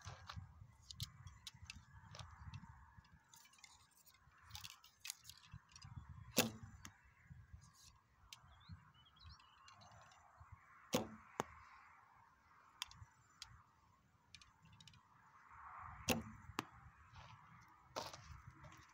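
Recurve bow being shot three times, about five seconds apart. Each shot is a sharp snap of the string at release followed by a brief falling whoosh. Wind rumbles on the microphone between shots.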